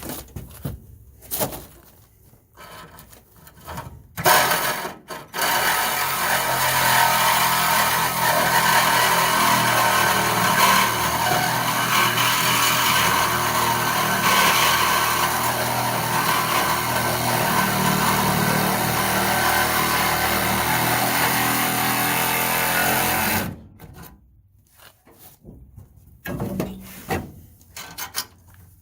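A power tool working the steel of a 1969 Dodge Charger's torsion-bar box bracket, freeing it from the body. It gives a few short bursts, then runs steadily for about 18 seconds and stops.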